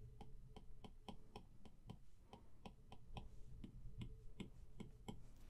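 Apple Pencil tip tapping and sliding on an iPad's glass screen as short fur strokes are drawn: a run of faint quick clicks, about four or five a second.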